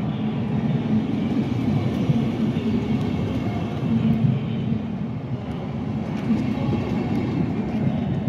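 Passenger coaches of a locomotive-hauled regional express train rolling slowly past along a platform as the train pulls into the station, a steady low rumble of wheels on rails. The control car at the rear comes by near the end.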